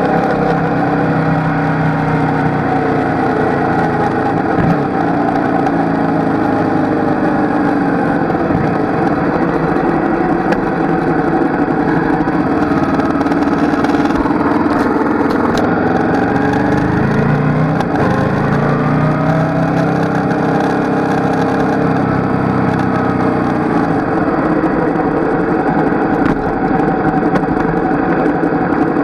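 Motorcycle engine heard from the bike itself, running steadily at moderate revs, its pitch rising and falling with throttle and gear changes as it slows off the track into the pits.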